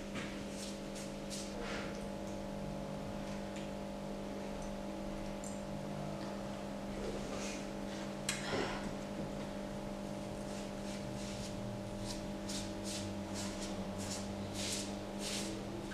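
A sponge rubbing and scrubbing over the surface of a freshly cast sculpture head in short, repeated strokes, which come about twice a second near the end, over a steady low hum.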